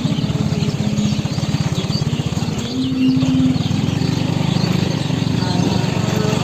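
A small engine running steadily, a fast even train of firing pulses, its pitch rising briefly about three seconds in. Faint high chirps sound above it.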